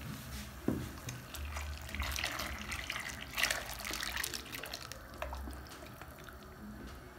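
Fermented flour-and-water slurry poured from a plastic jug into a steel pot of boiling water and stirred in with a metal spoon: liquid splashing and bubbling, with a few sharp clicks, loudest in the middle and easing off near the end.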